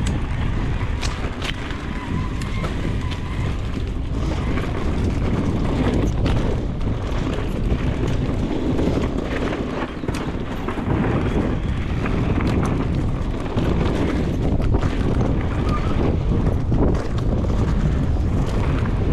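Wind buffeting the microphone of a mountain bike rider's camera while riding a dry, dusty dirt trail, with a steady rumble of tyres on dirt and scattered knocks and rattles over bumps.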